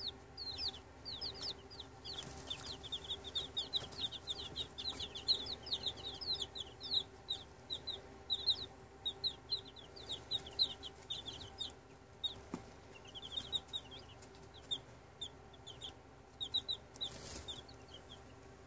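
A brood of baby chicks peeping: rapid, high-pitched, downward-sliding peeps, densest for the first twelve seconds and then thinning to scattered calls. A faint steady hum runs underneath.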